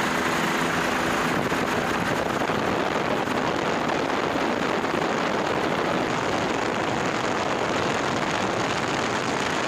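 Steady, even rushing noise like wind or airflow, with no distinct tones or strokes.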